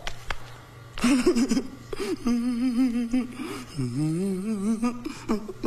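A man's voice makes a long, wordless, wavering hum-like note starting about a second in. Near the middle it dips low and climbs back.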